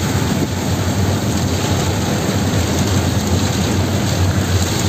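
Heavy rain hitting a moving car, heard from inside the cabin, over the steady low rumble of the car and its tyres on the wet road.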